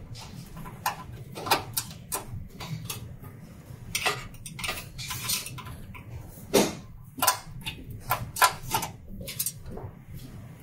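Screwdriver turning out screws from a sheet-metal printer cover: irregular small metallic clicks and clinks, with a louder clink about six and a half seconds in.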